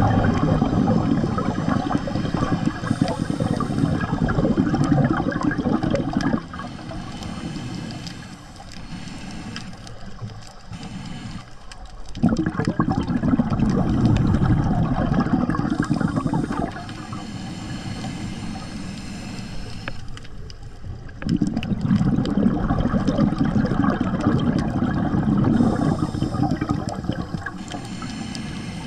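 Scuba diver's regulator underwater: three long bursts of bubbling exhaust, about one every nine seconds, with quieter stretches between.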